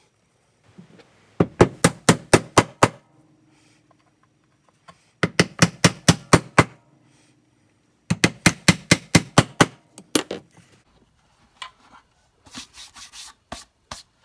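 Claw hammer driving nails into a plywood panel: three quick runs of about eight blows each, roughly five a second, followed by a few lighter single knocks near the end.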